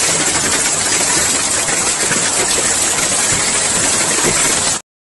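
Heavy rain pouring down in a dense, steady hiss that cuts off abruptly near the end.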